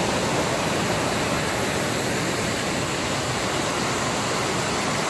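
Waterfall pouring over rock ledges: a steady, even rush of water.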